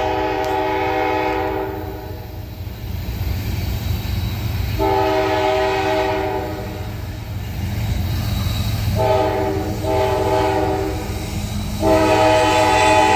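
Nathan K5LA five-chime horn on a CSX ET44AH locomotive blowing a grade-crossing sequence as the train approaches. A long blast ends about two seconds in. Then come another long blast, a short blast followed at once by a longer one, and a final long blast still sounding at the end, all over the low rumble of the oncoming train.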